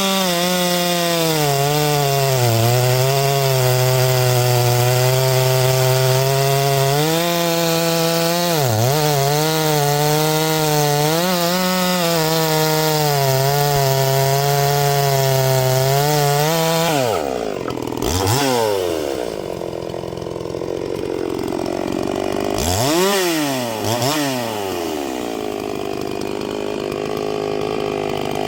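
Two-stroke chainsaw cutting through oak at full throttle, its engine speed dipping a few times as the chain loads up in the cut. About 17 seconds in it drops off to idle, with two short revs of the throttle.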